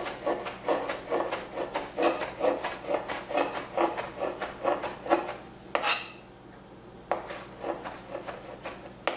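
Chef's knife dicing peeled Hatch green chilies on a white plastic cutting board: quick taps of the blade on the board, about four a second, pausing about six seconds in and then going on more softly.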